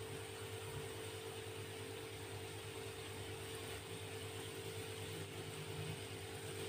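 Semolina vada batter frying in hot oil, a faint steady sizzle under a constant mechanical hum.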